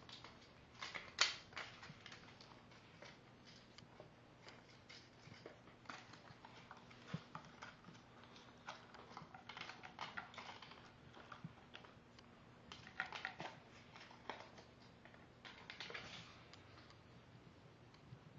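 Kittens batting a small ring of cardboard tube across a tile floor: faint scattered clicks and scratchy scuffles of the cardboard and their paws and claws, in several short clusters, the loudest about a second in.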